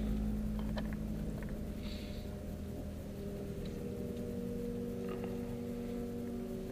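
Car engine running at low speed, heard inside the cabin as a steady hum, with a few light clicks in the first second and a half. The hum's tone shifts slightly about four seconds in.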